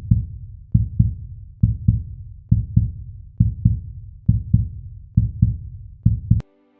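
Heartbeat sound effect: deep paired thumps, lub-dub, about once every 0.9 seconds. It stops abruptly just before the end, and soft sustained music begins.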